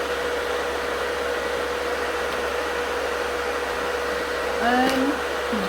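Steady whirring of a nail dust-collector fan with a constant thin whine.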